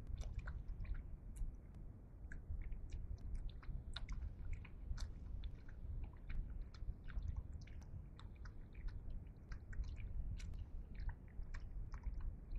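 Spotted hyenas lapping water, a quick irregular run of wet clicks and slurps, several a second, over a steady low rumble.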